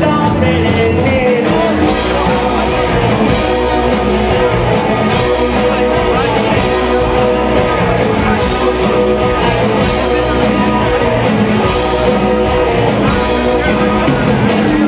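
Live rock band playing loudly, with singing over a steady beat.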